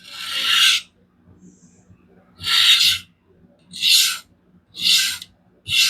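Diamond sharpening plate drawn along a DC53 steel knife edge in five separate gritty strokes, each about half a second long and about a second apart, to flip the burr raised on the blade.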